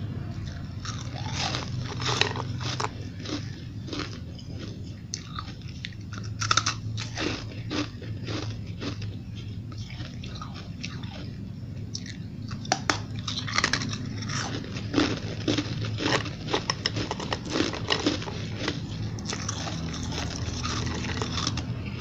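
Chunks of frosty, snowball-like ice bitten and chewed close to the mic, giving irregular clusters of crisp crackling crunches. The crunching is busiest in the second half, over a steady low hum.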